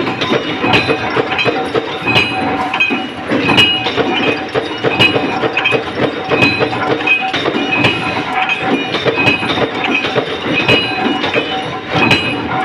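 Large mechanical punch press stamping metal rings: a steady machine drone with sharp metallic strikes and clinks every second or so, and steady ringing tones over it.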